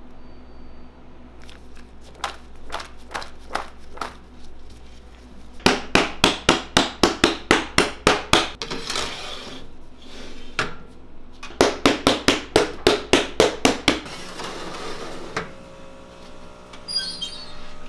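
Metal baking tray of freshly piped macaron shells rapped down hard on the counter again and again, in two quick runs of sharp knocks about five a second, to knock air bubbles out of the shells before baking.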